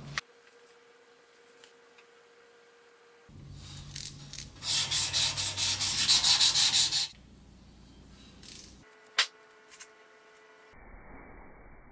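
Hand sanding on the wet, grey-primed metal hood of an antique toy dump truck. Starting about three seconds in, it becomes a run of quick back-and-forth strokes, about four a second, that stops after a couple of seconds. A single sharp tap follows about nine seconds in.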